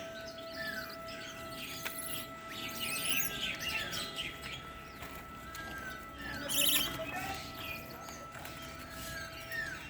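Small birds chirping with many short, quick calls, over a faint steady hum. A brief louder rustling burst comes about seven seconds in.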